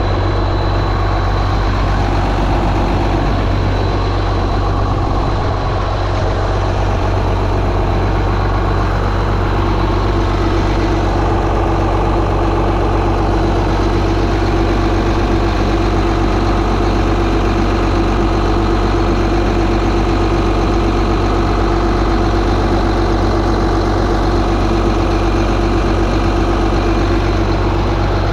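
A heavy diesel engine of harvest machinery running steadily at constant speed: a continuous low drone with a steady hum on top.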